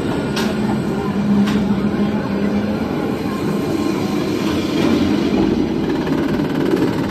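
Phoenix Rising inverted roller coaster train, heard from a seat on board, rolling out of the station and onto the lift hill: a steady, loud rumble of the wheels on the track with a couple of sharp clicks in the first two seconds.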